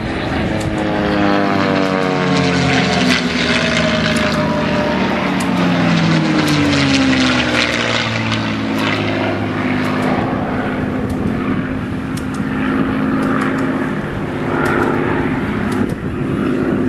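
Low flypast of piston-engined warbirds: a pair of P-51 Mustangs' V-12 engines chasing a Messerschmitt Me 108. Several engine drones fall in pitch as the aircraft pass, then settle into a steadier drone.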